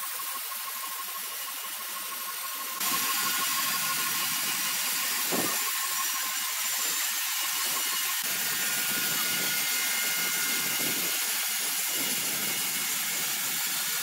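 Horizontal band sawmill blade cutting lengthwise through a large hardwood timber: a steady hiss of the cut over the machine's running noise, louder from about three seconds in.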